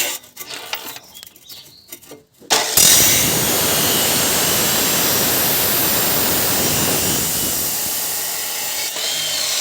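Steel square-pipe fabrication: a few irregular metal clicks and scrapes, then from under three seconds in a loud, steady hiss of a tool working the steel, easing slightly toward the end.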